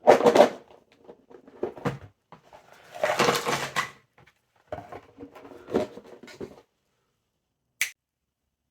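Cardboard jigsaw puzzle pieces and box being handled: bursts of rustling and clattering. The loudest come at the start and around three seconds in, with one short sharp click near the end.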